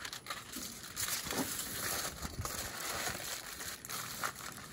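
Sheets of aluminium foil crinkling and crackling as they are handled and folded, a little louder from about a second in.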